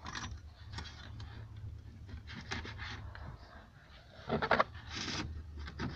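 Handling noises of a wiring harness being pulled through a car dashboard: wire and plastic trim rustling and scraping over a steady low hum. A short breathy voice sound about four seconds in is the loudest moment.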